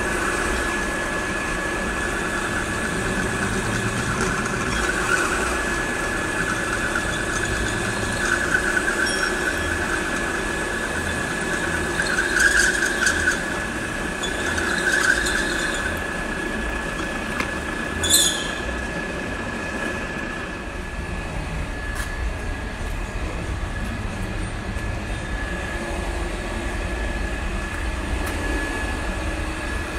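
A drill with a twist bit boring through flat steel bar: a steady high motor whine, with the bit squealing and grinding in the metal now and then, and a sharp metallic clank about 18 seconds in.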